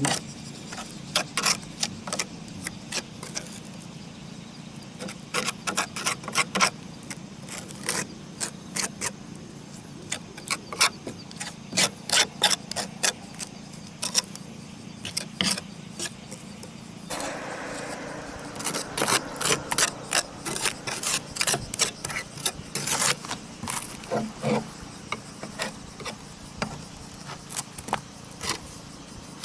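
Ceramic roof tiles clinking and knocking as they are handled and fitted, with many irregular sharp taps and some scraping, and a spell of rougher scraping a little past halfway.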